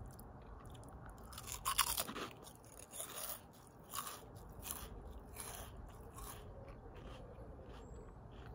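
Someone chewing crunchy Pom-Bär potato snacks: a run of crisp crunches, loudest about two seconds in, then softer, sparser chewing. The snacks are still crisp, not gone soggy.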